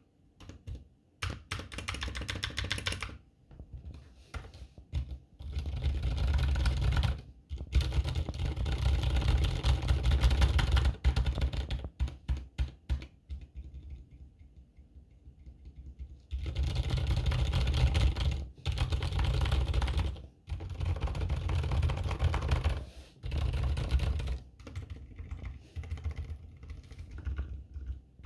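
Typing on a GK61 60% mechanical keyboard fitted with keebwerk Tacit silent switches: quick runs of muted keystrokes with a dull low thock, in bursts broken by short pauses and one lull of a few seconds near the middle.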